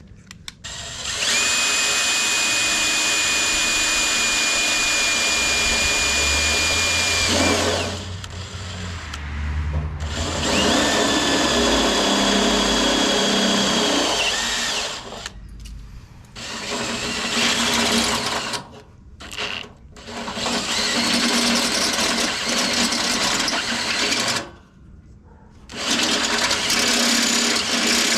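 Electric drill running in several bursts with a steady high whine, stopping and starting, as a small sharp starter bit bores a pilot hole through painted tractor sheet metal.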